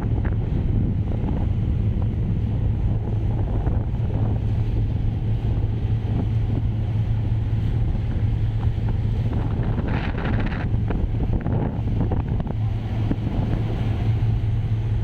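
Strong wind buffeting the microphone over a steady low hum of ship's engines or machinery.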